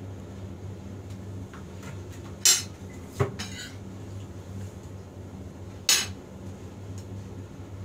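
Metal spoon clinking and scraping against a ceramic plate while eating: three sharp clinks, the loudest about two and a half and six seconds in.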